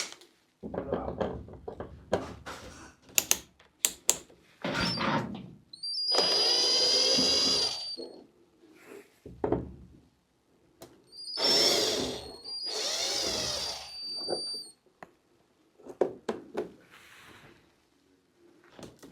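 Power drill running in three short bursts, a whine whose pitch bends as it runs, with clicks and knocks of handling in between.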